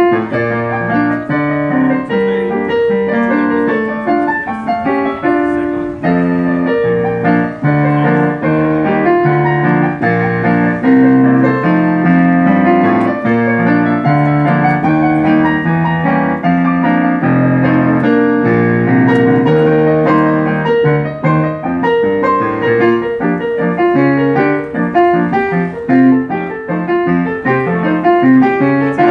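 Ragtime piano tune played on a digital stage piano, with quick, continuous notes.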